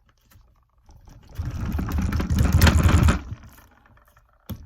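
Desk rattling and thumping for about two seconds as a ball of putty is pounded flat on it, followed by a single knock near the end.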